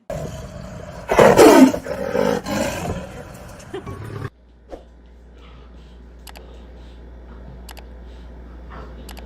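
An animal's loud call, bending up and down in pitch for about two seconds, then a sudden cut to a quieter stretch with a low steady hum and a few faint clicks.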